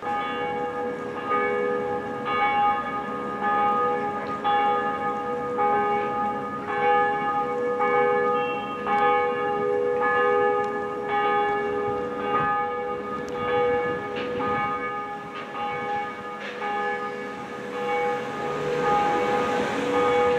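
Church bells ringing, a fresh strike about once a second with the tones ringing on and overlapping.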